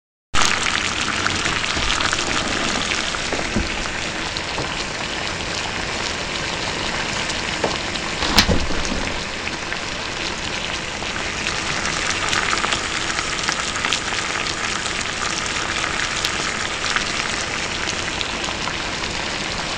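Water at a rolling boil in a metal backpacking pot over a small homemade can stove's flame: a steady bubbling hiss. One sharp knock sounds about eight seconds in.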